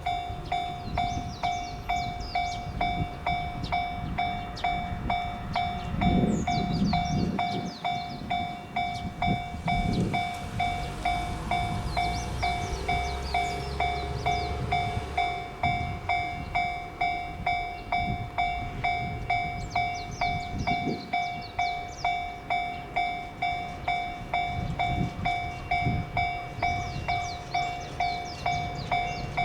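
Japanese level crossing warning bell ringing in a steady rhythm, about three strikes every two seconds, with low rumbles coming and going underneath.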